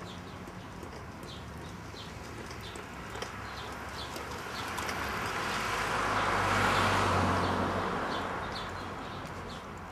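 A vehicle passing by: its noise swells to a peak about seven seconds in and fades, with a low steady hum under the loudest part. A bird chirps in short repeated calls throughout.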